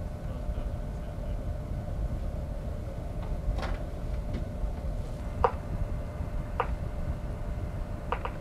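Steady low rumble and hum of a ship's machinery, with wind buffeting the microphone. Four or five short, sharp knocks come at irregular intervals, two of them close together near the end.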